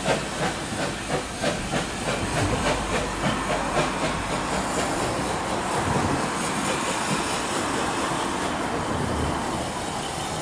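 Steam locomotive pulling away, its exhaust beats chuffing about two to three a second with steam hiss, the beats quickening and merging into a steady rush after about four seconds as the train gathers speed.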